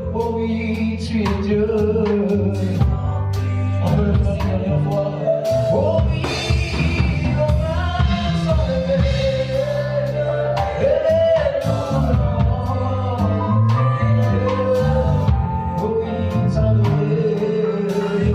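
Live gospel worship music: a band with bass and drum kit plays while singers carry a sustained, wordless-to-the-recogniser melody.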